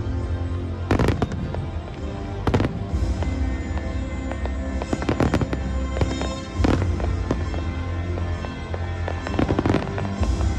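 Aerial fireworks shells bursting overhead: loud bangs every second or two with crackling between them, over music with a steady low bass.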